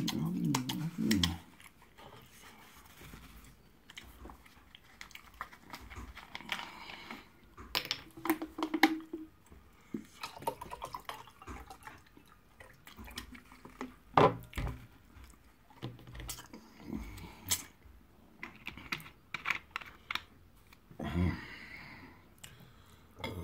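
Close-up eating sounds: chewing, lip smacks and finger licking as yam fufu and egusi soup are eaten by hand, with scattered short clicks.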